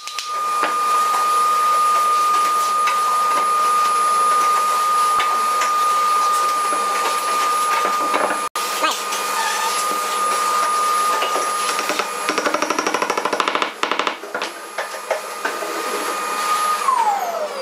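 A small motor running with a steady high whine, with knocks and taps over it and a short burst of rapid rattling about twelve seconds in; near the end the whine falls in pitch as the motor winds down.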